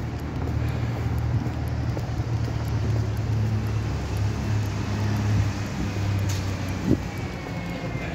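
Steady low rumble of road traffic along a city street, with one sharp knock about seven seconds in.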